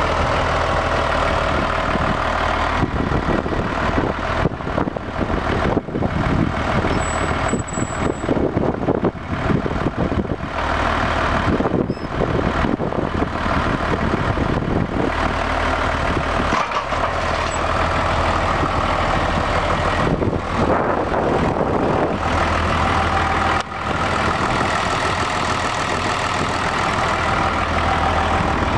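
2004 New Holland TS115A tractor's diesel engine running, a steady low engine note with stretches of rougher, louder noise over it.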